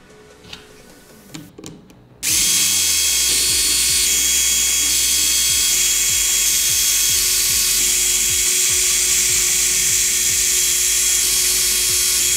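Small electric screwdriver running steadily on the side-cover screws of a miniature V-twin model engine. It starts suddenly about two seconds in, after a few faint clicks.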